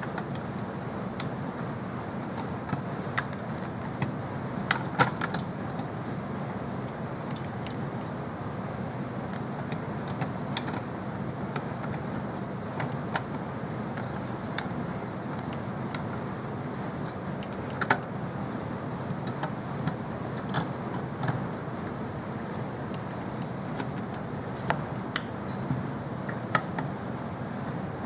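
Scattered light metallic clicks and taps of computer parts and hardware being handled and fitted, over a steady low hum.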